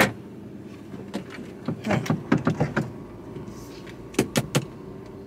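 Short clicks and knocks from handling inside a car's cabin: one about a second in, a cluster a little later and three quick ones near the end, over a low steady hum from the car.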